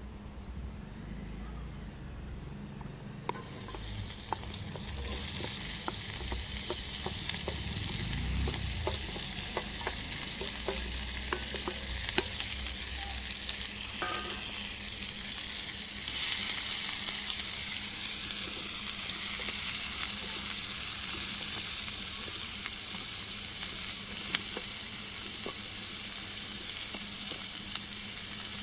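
Chopped onion and red chili sizzling in hot oil in a grill pan. The sizzle starts a few seconds in and grows louder about halfway through, and the onions are stirred with a wooden spatula.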